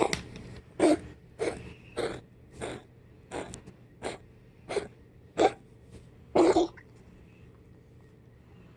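A pet wheezing: about ten short, noisy breaths in a steady rhythm, roughly three every two seconds, the last one longer. Then they stop. The owner can't tell what is wrong with her breathing.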